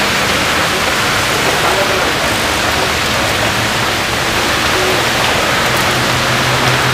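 Heavy rain pouring onto a busy road, a loud, steady hiss with traffic moving through the wet. A low engine hum comes in about five seconds in.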